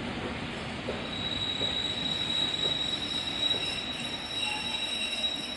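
A train moving slowly on the rails with its wheels squealing: a thin, steady high squeal begins about a second in over the running rumble, with a few faint clicks.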